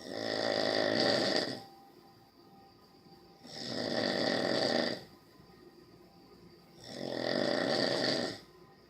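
Slow, regular snoring: three long snores about three and a half seconds apart, each lasting about a second and a half, with quiet breaths between.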